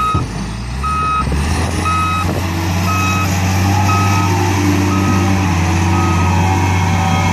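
Ensign YX667 wheel loader backing up: its reversing alarm beeps about once a second over the steady running of its diesel engine.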